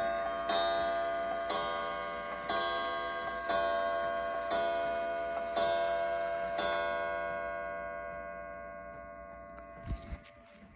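Pendulum wall clock striking the hour on a coiled wire gong: one ringing stroke about every second. The strokes stop about two-thirds of the way through and the last one rings away. A couple of short knocks come near the end.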